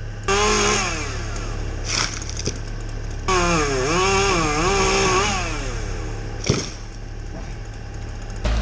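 Chainsaw revved up in two bursts, one about a second long and one about two seconds long, its pitch dipping and rising as it cuts, over a steady low hum. Two sharp knocks fall between the bursts.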